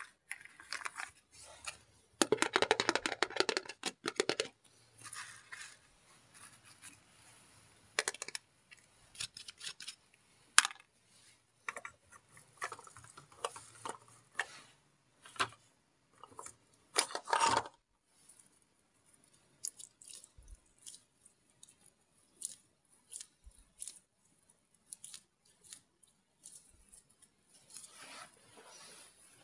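Plastic toy fruit pieces, a plastic basket, and a toy cutting board and knife being handled and set down: scattered light plastic clicks and clatters, with a dense run of rattling about two to four seconds in and a few louder single knocks later.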